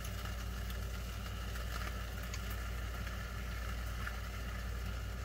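A steady low electrical hum at mains frequency, with a few faint ticks scattered through it.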